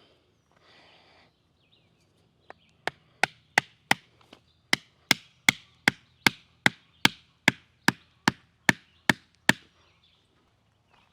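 A wooden layout stake being driven into the ground with a hammer: about nineteen sharp, even strikes, roughly two and a half a second.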